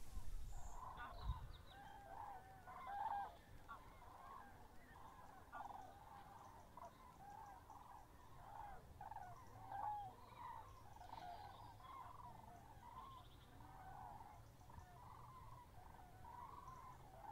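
A flock of birds calling faintly, many short honking calls overlapping without a break.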